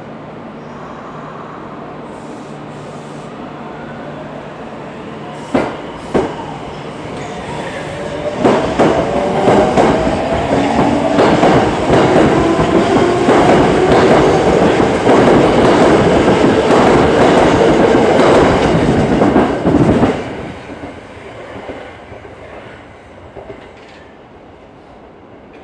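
Tokyo Metro 01 series subway train passing through the station without stopping. It approaches with a first couple of sharp clicks, runs past with a fast clatter of wheels over rail joints and a rising whine, then fades away.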